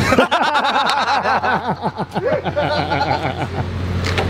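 Hearty laughter: a quick run of repeated ha-ha bursts that dies away after about three and a half seconds.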